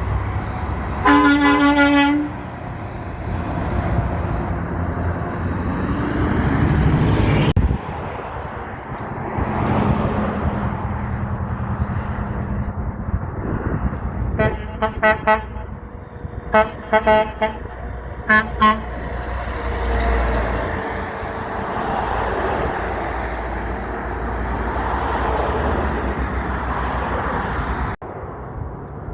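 Passing trucks sounding their horns: one long blast about a second in, then a run of short toots around the middle, over steady diesel engine and road noise. The sound drops off abruptly twice.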